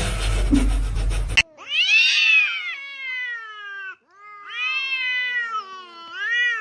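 A cat giving two long, drawn-out meows, each sliding down in pitch; the second ends with a short rising cry. Before them, a rumbling noise cuts off abruptly about a second and a half in.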